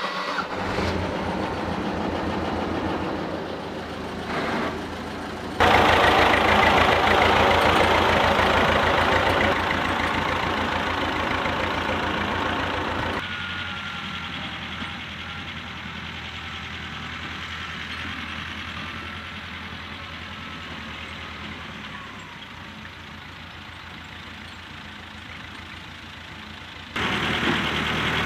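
Tractor engine running steadily with an even low pulse. The sound jumps louder about six seconds in, drops back about thirteen seconds in, and jumps up again near the end.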